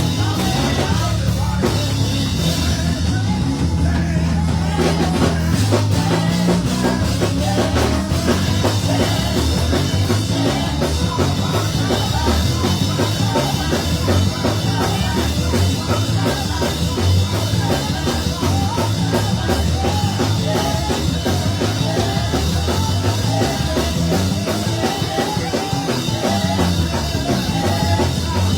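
Church band playing, with a drum kit keeping a steady beat over bass notes.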